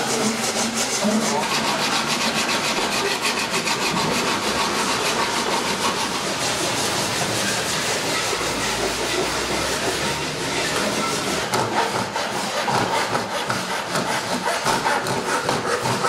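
Saw cutting through cow horn in a quick, regular run of back-and-forth strokes.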